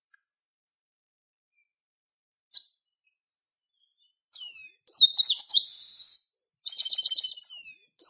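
Chestnut-capped blackbird (garibaldi) singing. One short high chirp about two and a half seconds in, then from about four seconds on, phrases of high whistled notes with a buzzy stretch, broken by short pauses.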